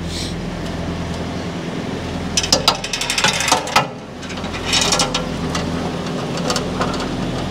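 Clusters of metallic clanking and ratcheting, starting a couple of seconds in and returning twice, over a steady low droning hum.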